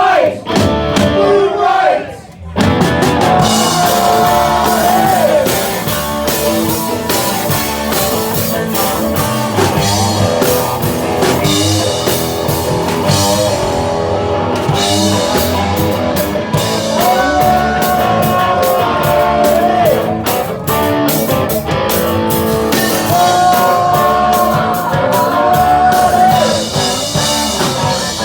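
Live rock band playing a song with a singer holding long notes over guitar and a steady drum beat, with a short break about two seconds in.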